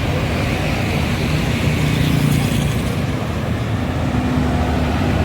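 Tour bus diesel engine idling steadily, a low continuous rumble, with road traffic behind it.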